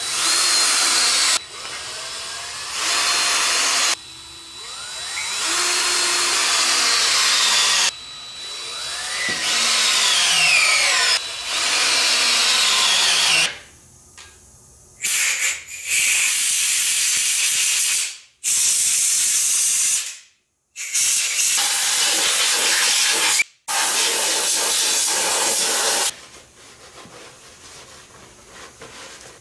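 Compressed-air blow gun hissing in repeated bursts of one to four seconds, about eight in all, with its pitch sliding up and down as the air is blown into the engine block's threaded holes.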